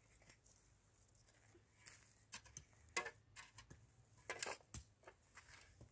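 Near-quiet stretch with a series of faint, irregular clicks and rustles starting about two seconds in, the sharpest about three seconds in.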